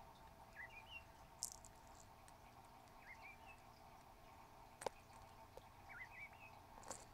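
Faint chirping calls from a quail: three short phrases that rise and fall in pitch, a couple of seconds apart. A single sharp click sounds about five seconds in.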